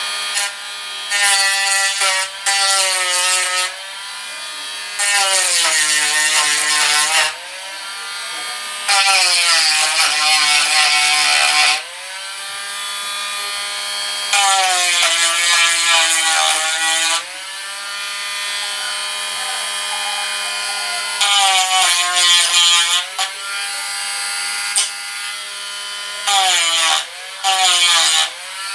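Dremel Stylus rotary tool with a sanding wheel running with a steady whine, and about seven passes where the wheel grinds against the puttied walls of a model ship's hull: each pass adds a loud rough sanding noise and pulls the motor's pitch down under load, which rises again as the wheel lifts off. It is knocking down high spots of built-up plastic-model putty.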